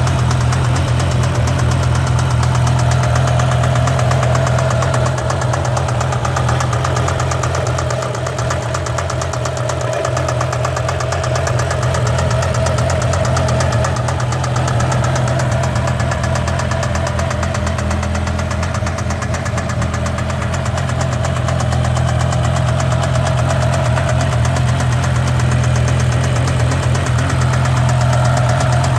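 BMW E60 M5's S85 V10 engine running steadily with a rapid, regular knock, an engine fault whose cause the owner does not know.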